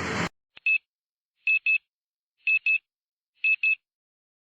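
Short, high electronic beeps over dead silence: one single beep, then three double beeps about a second apart.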